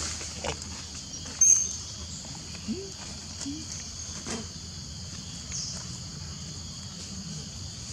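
Steady high-pitched insect chorus, with scattered light rustles and clicks from dry leaves. One sharp, loud click about a second and a half in.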